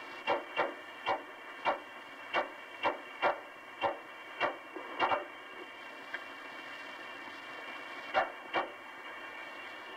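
Hiss of the Apollo 10 lunar module's onboard voice recording, with a few faint steady tones under it. Short clicks sound about twice a second for some five seconds, then twice more near the end.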